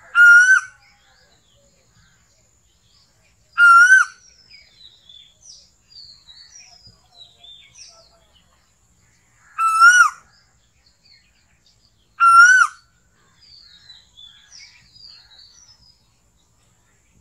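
Asian koel (koyal) calling: four loud, clear whistled notes, each under a second long, rising slightly and then dropping at the end. Fainter high chirps from other birds fill the gaps between them.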